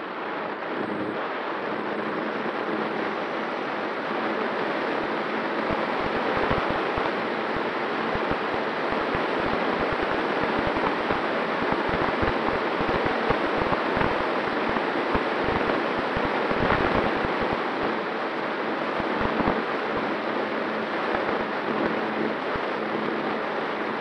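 Rushing airflow over the onboard camera's microphone of a Skua FPV flying wing in fast flight: a steady loud hiss with irregular low buffeting thumps, heaviest through the middle, over a faint steady tone from the electric motor and propeller.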